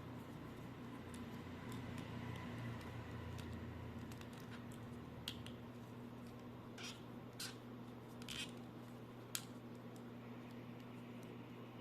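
A few short, sharp clicks and taps, spaced out over several seconds, above a steady low hum.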